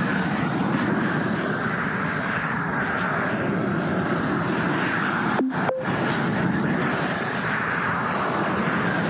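A roofing torch burning steadily as its flame heats the underside of a bitumen cap sheet flashing, melting the material at the angle change. The sound cuts out very briefly about halfway through.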